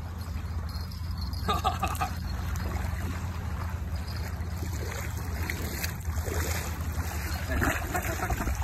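Shallow water sloshing and splashing lightly as a large sturgeon shifts its body at the surface, over a steady low rumble.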